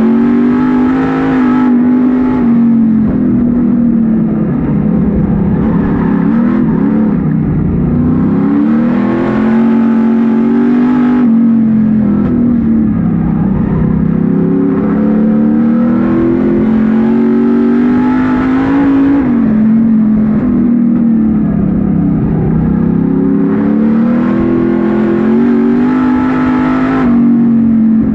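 Street stock race car's engine, heard from inside the cockpit, under hard throttle. Its pitch climbs along each straight and drops back as the driver lifts for the turns, three times over.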